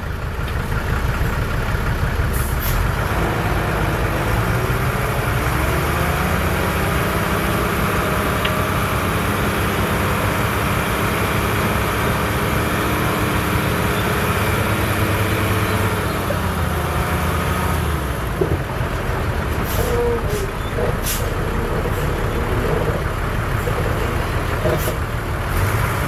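Heavy diesel engine of earthmoving machinery running loud: it revs up over a few seconds, holds high for about ten seconds, then drops back. Several short, sharp clanks or hisses come about 2 seconds in and again in the last six or so seconds.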